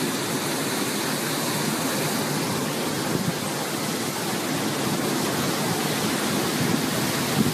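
Strong wind blowing through palm trees, a steady rushing noise with no letup.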